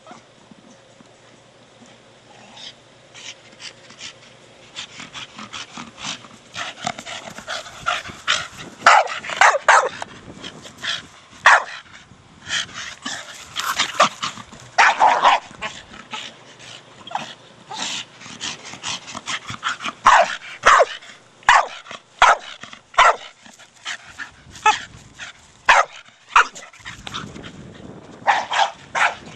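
Staffordshire Bull Terrier barking and yipping in play, in quick irregular bursts that get busier after the first few seconds, mixed with sharp knocks from his hard plastic ball.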